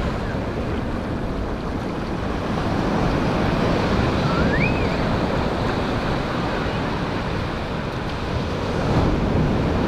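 Ocean surf washing up the beach in a steady rush of noise.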